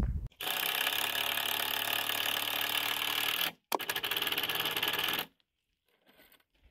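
Cordless impact driver driving a screw into a wooden framing post: one steady run of about three seconds, a brief stop, then a shorter run of about a second and a half.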